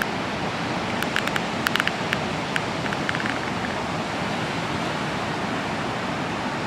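Steady rush of ocean surf and moving water, with a short run of sharp clicks between about one and three and a half seconds in.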